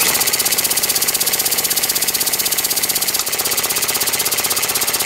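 An old belt-driven, single-cylinder air-cooled air compressor switches on suddenly and runs with a loud, fast, even pulsing of about a dozen strokes a second as it pumps up air pressure.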